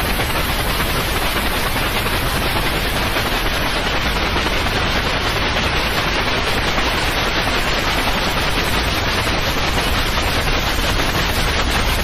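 Steady white noise played as a sleep aid: an even, loud hiss spread from low to high pitches, without change.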